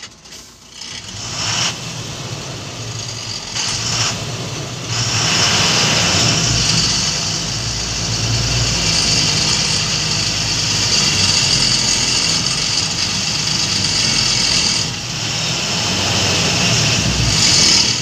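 Tata truck's diesel engine running under way, heard from inside the cab. It picks up about a second and a half in and again about five seconds in, then holds steady.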